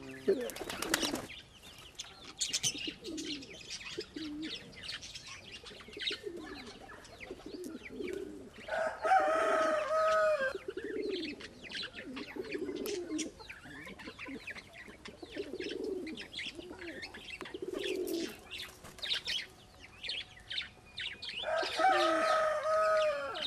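Domestic pigeons cooing repeatedly in low, rolling calls, the sound of a male's strutting courtship display, over many light clicks and scratches. Two louder, higher-pitched calls stand out, one about nine seconds in and one near the end.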